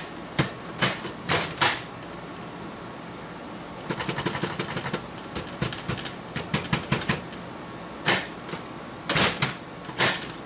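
The slot machine's metal main door and latch being worked, giving a series of sharp clicks and knocks with a fast rattling clatter about four seconds in, as the door is pushed and slammed to get it to line up. The door is not lining up right every time, so its optic door sensor keeps switching between open and closed.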